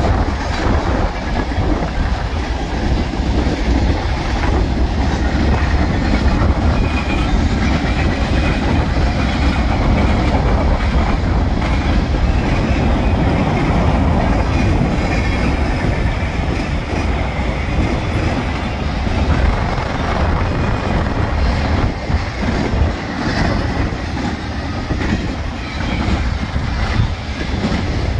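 Mixed freight cars of a Union Pacific manifest freight train rolling past: a loud, steady rumble of steel wheels on rail with frequent clicks throughout.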